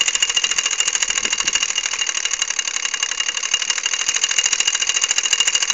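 Mamod Minor 1 toy steam engine running steadily, its single oscillating cylinder giving an even run of fast exhaust chuffs. It is turning slower than usual for it, which the owner puts down to the freezing cold weather.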